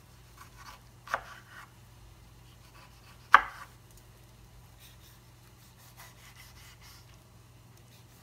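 Chef's knife slicing through a tomato on a bamboo cutting board: two knocks of the blade on the board, one about a second in and a louder one a little past three seconds, with faint slicing ticks in between, over a faint steady low hum.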